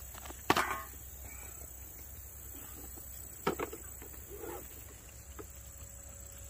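A few sharp clicks and knocks from the plastic wand and hose of a small electric pressure washer being handled. The loudest comes about half a second in and another about three and a half seconds in. The pressure washer's motor is not running.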